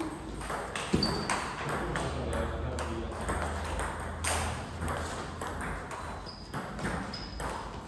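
Table tennis balls clicking off rubber bats and the table in rallies, a quick irregular run of sharp clicks with one louder hit about a second in.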